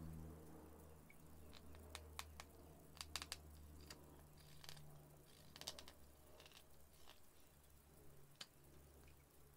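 Straight carving knife shaving cherry wood on a hand-carved spoon blank: faint crisp cuts and clicks in several short clusters, over a low steady hum.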